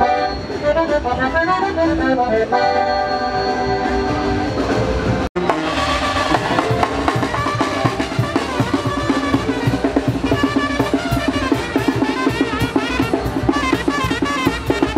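Live Mexican music: an accordion band with drum kit plays held accordion chords. About five seconds in, a sudden cut switches to a brass band with tuba, saxophones and drums playing a rhythmic tune.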